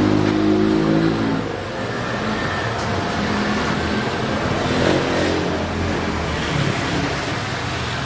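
Steady rain with a low droning tone underneath that swells and fades.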